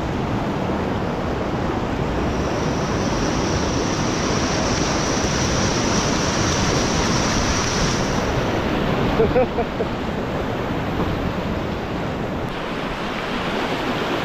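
Steady rush of whitewater in river rapids, with wind buffeting the microphone.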